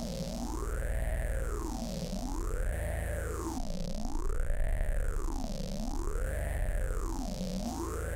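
Electronic noise patch from the AudioMulch software synthesizer: a tone gliding smoothly up and down in pitch about once every two seconds, like a slow siren, over a low buzzing drone.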